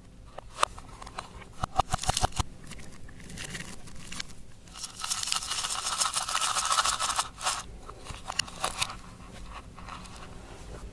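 Crackling, crunching handling sounds of makeup and clear slime being mixed: a run of sharp clicks, then a longer stretch of dense crackling midway, then a few more clicks.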